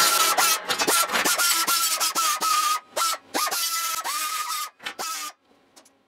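Repeated scraping strokes of metal against metal, each carrying a high squealing tone, coming unevenly and stopping about five seconds in.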